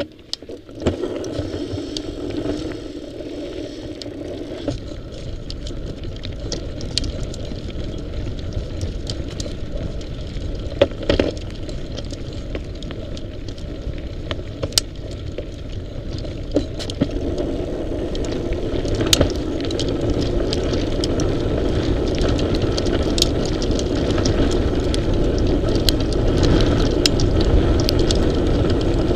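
Mountain bike ridden along a dirt singletrack, heard from a handlebar-mounted camera: a steady rush of tyre and wind noise with scattered clicks and rattles from the bike over bumps, growing louder in the second half as the pace picks up.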